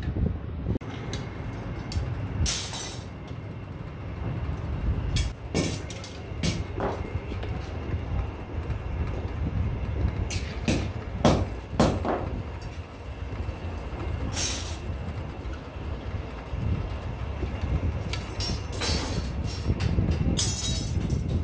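Bench drill press running with a steady low hum as it drills through iron pliers arms, with repeated sharp clanks and clinks of iron strips being knocked and handled on the metal table.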